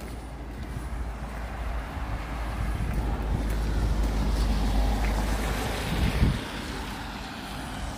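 Wind buffeting the microphone: a rushing noise over a heavy low rumble that swells over about five seconds and drops away sharply about six seconds in.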